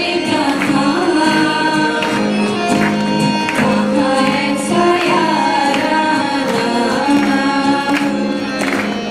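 Three girls singing together into microphones, holding long notes over an instrumental backing with a percussion beat.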